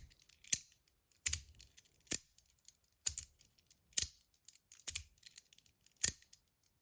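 HiFi Boy metal fidget toy (stainless steel and copper) being clicked by hand: about seven sharp, crisp metallic clicks, roughly one a second.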